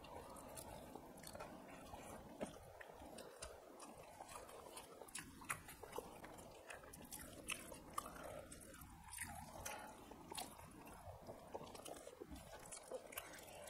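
Close chewing and eating sounds of people eating rice and fish curry by hand, with frequent short clicks scattered irregularly throughout.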